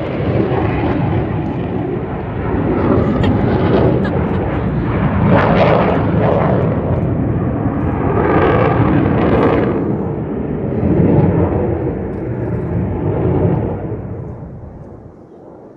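Aircraft flying past, loud, swelling twice in the middle, then fading away over the last couple of seconds.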